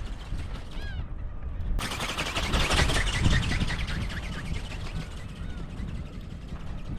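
Strong wind buffeting the microphone as a steady low rumble, with a dense burst of rapid clatter about two to four seconds in. Small chirps are scattered through it.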